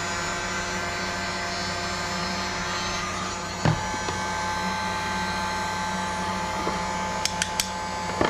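Handheld electric heat gun blowing steadily, a whirring rush of air with a steady motor whine, which its owner says sounds like it's about to give out. A single click a little past a third of the way in and a few sharp ticks near the end.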